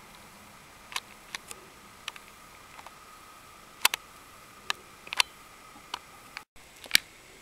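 About a dozen sharp, irregularly spaced clicks over a faint steady hiss, with the sound cutting out for an instant near the end.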